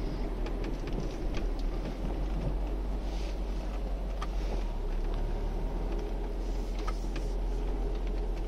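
Road and engine noise heard inside a moving Citroën XM's cabin: a steady low drone, with a few small clicks and rattles scattered through it.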